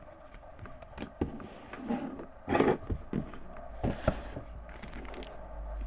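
Trading cards being handled and set down: scattered light taps, slides and scrapes of card stock, with a louder brief rustling sweep about two and a half seconds in.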